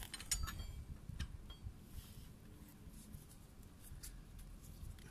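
A few light metallic clicks and scrapes, bunched in the first second and a half, as a T-handle wrench is worked on a motorcycle's oil drain bolt. Then only a faint low rumble in the background.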